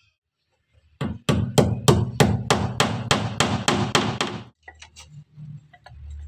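Small hammer tapping the nail of a plastic cable clip into the wooden incubator frame: a quick run of sharp blows, about four a second, starting about a second in and stopping after some three and a half seconds.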